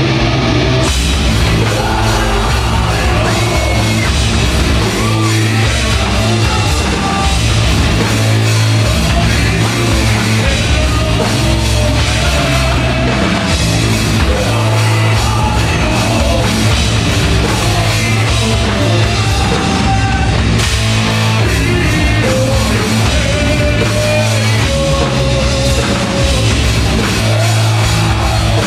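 Sludge metal band playing live: heavily distorted electric guitar and bass over a drum kit with cymbals, loud and dense, with yelled vocals. The drums and cymbals fill in the high end about a second in.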